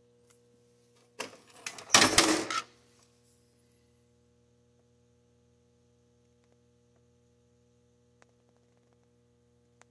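A faint steady electrical hum, broken by a short noisy burst lasting about a second and a half, loudest about two seconds in.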